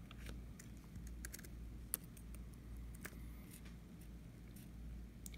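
Faint, scattered small clicks and taps from a computer being worked to scroll a page, the sharpest about two seconds in, over a low steady hum.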